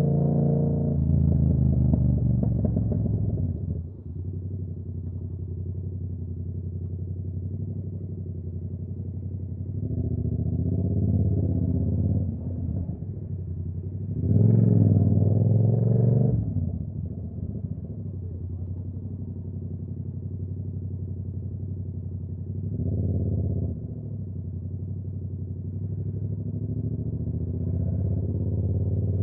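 Yamaha R7's 689 cc parallel-twin engine, through a Ko Lightning aftermarket exhaust, running on the move: it drops back to a steady, lower drone a few seconds in, then opens up in several bursts of acceleration with rising pitch, the loudest about halfway through, another short one later and a gradual build near the end.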